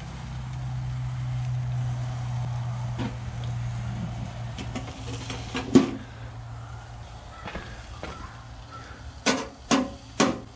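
Sheet-metal lid of a small Char-Broil charcoal grill being handled: one sharp clank about six seconds in as it is lifted, and three quick knocks near the end as it goes back on. A low steady hum fades out midway.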